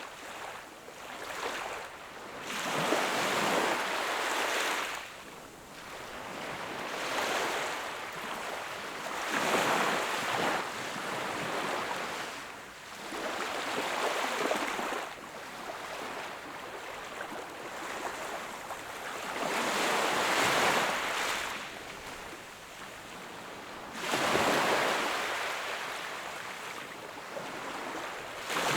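Sea waves breaking and washing up on the shore, swelling and falling back in repeated surges every three to five seconds.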